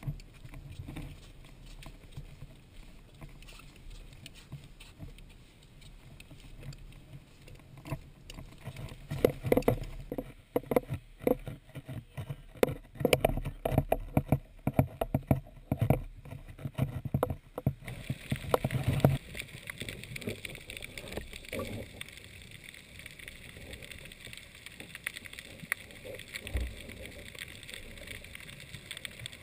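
Sound muffled through a sealed GoPro Hero 2 dive housing: a run of irregular knocks and bumps from handling the camera for about ten seconds in the middle, then a steady water hiss and sloshing as it goes into the sea.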